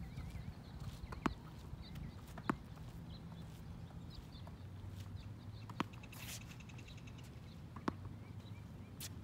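Outdoor ambience: small birds chirping faintly over a steady low hum, with about five sharp knocks a second or more apart and a brief hiss about six seconds in.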